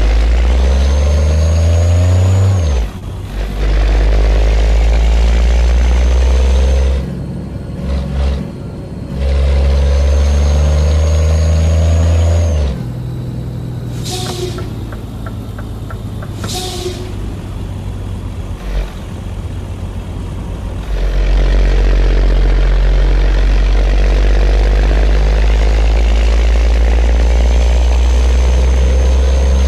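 Scania truck's diesel engine pulling hard under load, its drone climbing in pitch and falling away at gear changes around 3, 8 and 13 seconds in, with a high whistle over it. It eases off for several seconds, with a couple of short sharp hisses, then pulls loud and steady again.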